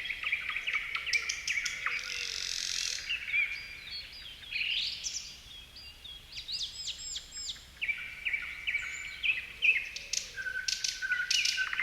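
Several songbirds singing and chirping at once: overlapping whistled phrases, quick trills and sharp chirps.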